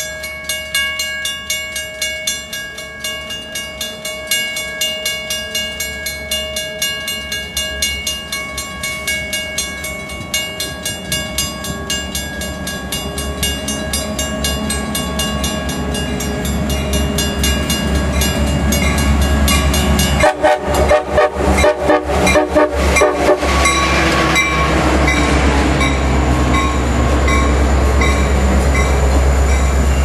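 Metra commuter train's Nathan K5LA five-chime air horn sounding a long held chord as the train approaches, fading out about halfway through. The train's rumble then grows louder as it rolls into the station, with a short spell of sharp clattering about two-thirds in.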